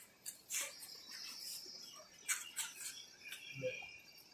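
Faint, sharp clicks of badminton rackets striking a shuttlecock during a rally, a few strokes a second or more apart, over faint chirping in the background.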